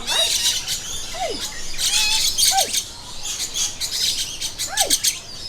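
A flock of lories and lorikeets chattering and screeching, a dense racket of shrill calls, with three short downward-sliding squawks cutting through.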